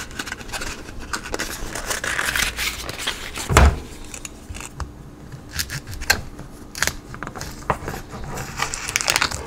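Foil wrapper on a block of Velveeta crinkling and a knife cutting through the wrapped block on a wooden cutting board, with one loud knock about three and a half seconds in and scattered clicks and rustles after.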